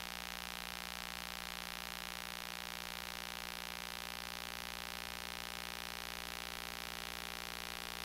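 Steady hiss with a constant hum of several fixed tones beneath it. No speech is heard, even though the preacher appears to be talking.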